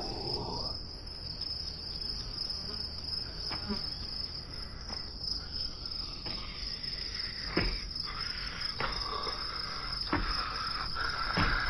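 Crickets chirping in a steady, high continuous trill, with a few short taps scattered through.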